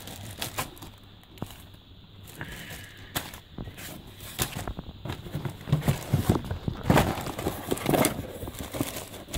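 Plastic zip-lock bags crinkling and rustling as hands rummage through a cardboard box, with irregular clicks and knocks of the bagged parts, louder in the second half.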